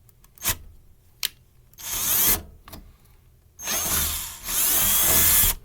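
Handheld power drill running in three short bursts, its motor pitch rising and falling as it bites, drilling a drain hole through the air conditioner's sheet-metal chassis; two sharp clicks come before the first burst.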